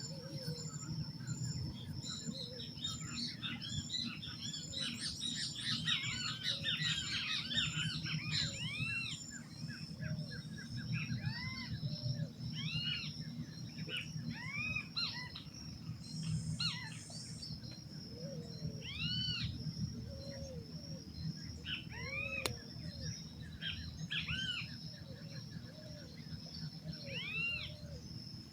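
Dawn chorus of many wild birds chirping and calling, busiest in the first ten seconds and then thinning to scattered calls. Underneath runs a steady high-pitched hum and a low, even rumble.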